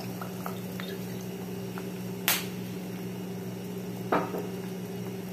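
Water bubbling at a boil in a stainless steel pot as fish sauce is poured in from a bottle, with small ticks, a sharp click about two seconds in and a knock about four seconds in. A steady low hum runs underneath.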